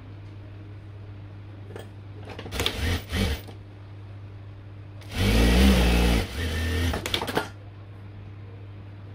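Sewing machine stitching in two short runs, a brief one about two and a half seconds in and a longer one about five seconds in, with a steady motor hum between them.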